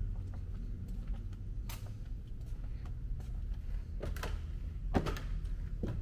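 Steady low hum of a large indoor hall, with a few short clicks and knocks scattered through it.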